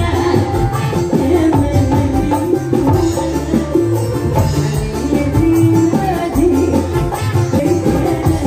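Live dangdut band music played loud over a PA, with a driving hand-drum rhythm, deep bass and a keyboard melody.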